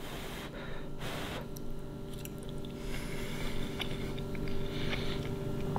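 A person chewing a mouthful of soft cheesy grits and fried crappie fillet, with small wet mouth clicks. A steady faint hum runs underneath.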